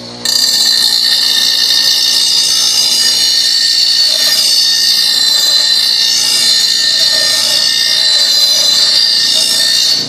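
Bench grinder wheel grinding the edge of a steel lawn mower blade to sharpen it: a loud, steady, high-pitched grinding that starts suddenly just after the beginning and cuts off shortly before the end.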